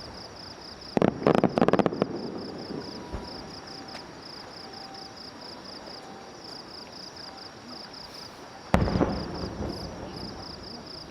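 Fireworks shells bursting: a rapid cluster of sharp cracks about a second in, then a single loud bang near the end that rumbles away. Insects chirp throughout in a high, even pulsing rhythm.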